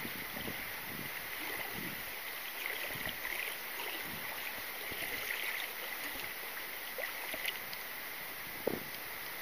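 Shallow river water running and lapping, a steady rush with a few small splashes and a short sharper splash or knock near the end.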